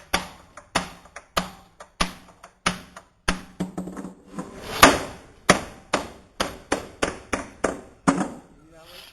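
Hammer strikes on a wooden barrel during cooperage assembly: a steady run of sharp blows, about one and a half a second, with one heavier blow about five seconds in and a short break near the end.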